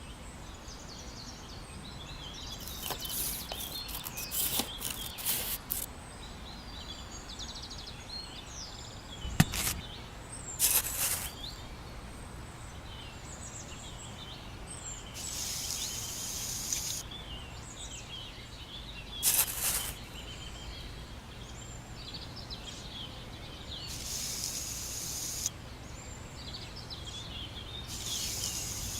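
Small birds chirping repeatedly in the background, with several short hissing rushes and a few sharp clicks or knocks.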